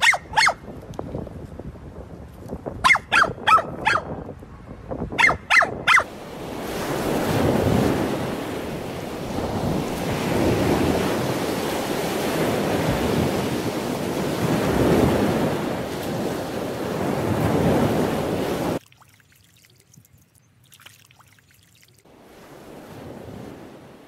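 A dachshund barking in short, sharp barks: one, then a quick run of four, then three. Then wind buffeting the microphone over breaking surf for about twelve seconds, which cuts off abruptly to quiet.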